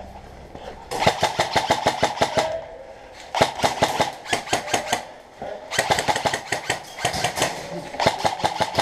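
HK416-style airsoft electric gun (AEG) firing on full auto: four bursts of rapid clicking shots, each a second or more long, separated by short pauses.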